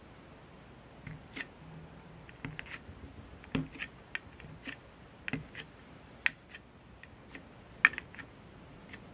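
Light, irregular clicks and taps of a clear plastic stamp block with a foam stamp being handled and pressed onto a gelli plate, about a dozen small knocks.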